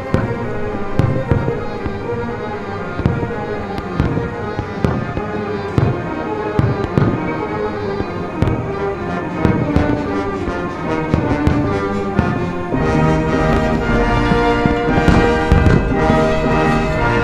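Fireworks bursting in many quick reports over orchestral music with brass. About three-quarters of the way through the music swells, becoming fuller and louder.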